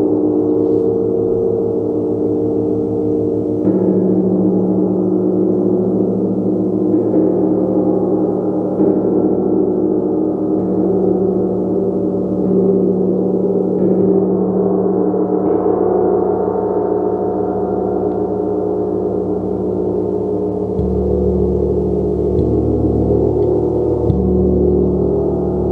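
A gong struck every few seconds, its overlapping tones ringing on into one continuous wash of sound. A deeper tone comes in about three-quarters of the way through.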